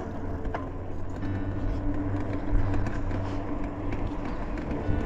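Motorcycle engine running steadily at cruising speed, with wind and road noise rushing over the microphone.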